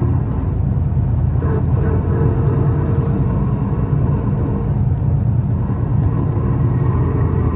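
Isuzu Erga city bus heard from inside the cabin while driving: a steady low rumble of engine and road noise. A faint steady tone joins about a second and a half in.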